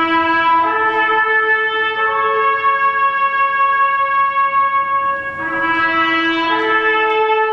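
A trumpet playing a slow melody of long, held notes, with a new phrase starting about five and a half seconds in.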